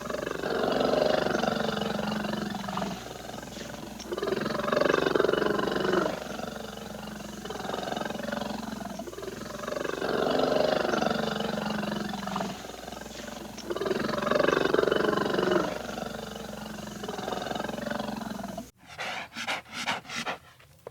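Bear growling and roaring in long, loud bouts that recur about every four to five seconds. Near the end the track cuts to a different recording: a quick run of short, sharp bursts.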